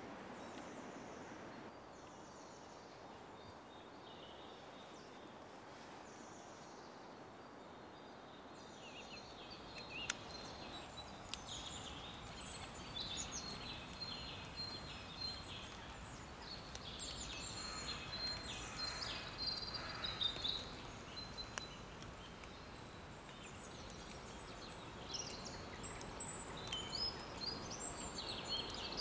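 Small birds chirping and singing over a faint, steady outdoor hiss. The birdsong starts about a third of the way in and goes on from there.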